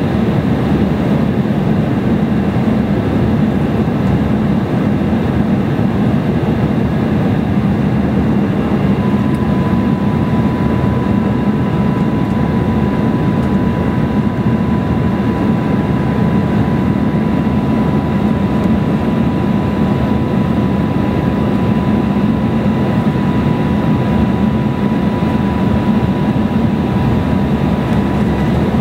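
Steady cabin noise of an Embraer E175 airliner in flight: the drone of its two CF34 turbofans and the rush of air, with no breaks. A thin steady high tone comes in about nine seconds in and holds.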